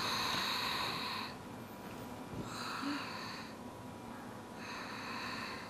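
A woman breathing audibly, three long breaths about two seconds apart, each lasting about a second.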